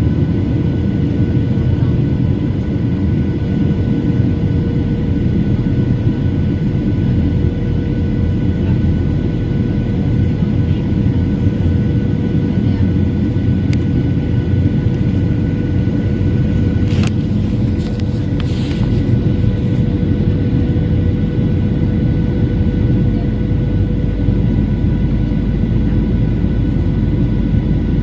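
Cabin noise of a Boeing 737-900 airliner on approach: a steady rumble of airflow and its CFM56-7B turbofan engines, with a steady hum and faint higher whines over it. A few brief clicks come about two-thirds of the way through.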